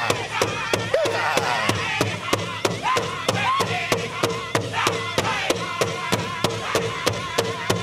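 Powwow drum group performing a chicken dance song: a big drum struck in a steady fast beat, about four beats a second, under high-pitched singing voices.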